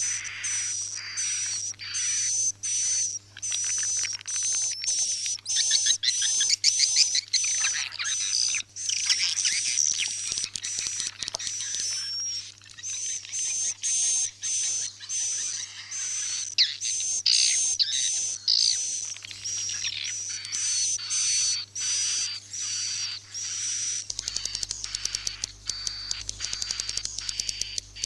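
Swiftlet roosting-lure call ('suara inap'): a recording of swiftlet chirps and twitters, repeated rapidly and evenly at about three a second, with a steady high whistle-like tone running through them.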